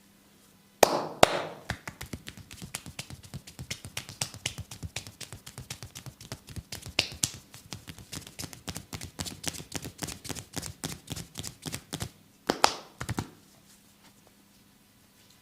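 Massage hands striking the body in quick percussive claps or slaps, about five a second, with sharp louder strikes at the start and a louder flurry near the end.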